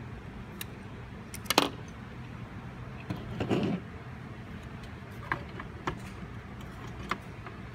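Clicks and clatter of a metal mini-PC chassis and its small parts being handled, over a steady low hum. A loud clatter comes about a second and a half in, a rustling scrape about two seconds later, then a few light clicks.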